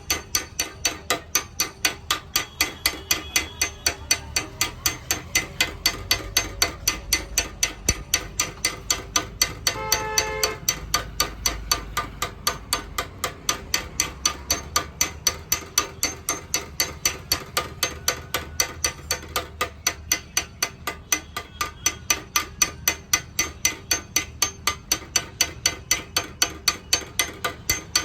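Hammer tapping on the metal of a motorcycle petrol tank, in an even rhythm of about three strikes a second, with a short pitched tone about ten seconds in.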